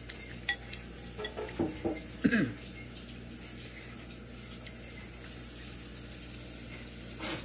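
A fork and spoon stirring and clinking in a ceramic bowl of noodle soup, with a cluster of short sounds between about one and two and a half seconds in, over a steady low hum.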